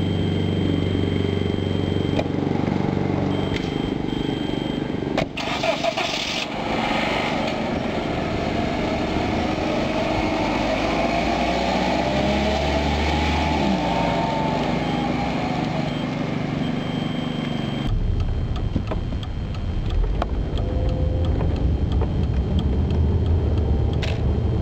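Volkswagen Golf engine starting and running as the car pulls away and drives past, its engine note rising and then falling around the middle. After a sudden change, a steady drone of engine and road noise comes from inside the car's cabin as it is driven.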